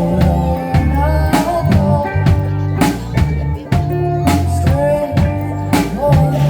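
A band playing a song: a drum kit keeps a steady beat over a bass line, with a gliding melody line above.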